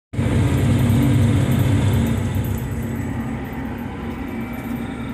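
Cat Challenger rubber-track tractor's diesel engine running steadily under way, heard inside the cab. It is a little louder for the first couple of seconds, then settles.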